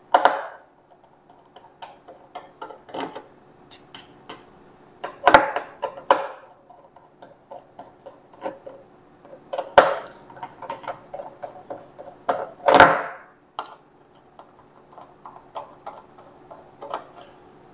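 Small screwdriver working the casing screws of a 2.5-inch laptop hard disk: many small metallic clicks as the bit turns and slips in the screw heads, with a few louder scraping bursts about five, ten and thirteen seconds in.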